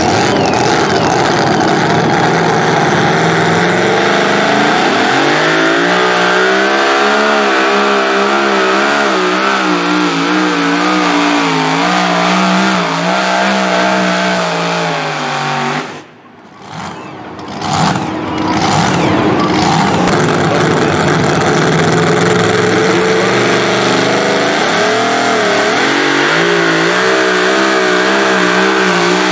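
Super modified two-wheel-drive pulling trucks' engines at full throttle under the load of a pulling sled, the pitch climbing and then wobbling rapidly as the truck bounces down the track. The sound breaks off about sixteen seconds in, and a second truck's engine then comes up and climbs again.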